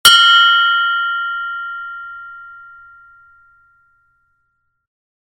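Meditation bell struck once, a bright ring of several high tones that fades away over about four seconds. It is the mindfulness bell sounded every 20 seconds as a reminder to return to the breath.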